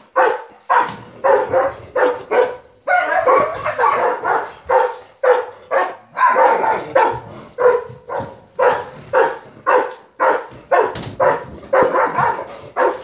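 A German shepherd barking over and over in a steady rhythm, about two barks a second.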